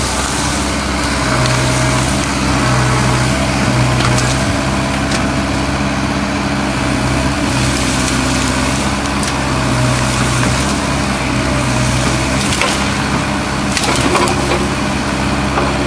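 Kubota U-45 mini excavator's diesel engine running steadily under work while wood cracks and splinters as the machine breaks up a tree. Several sharp cracks stand out, with a cluster near the end.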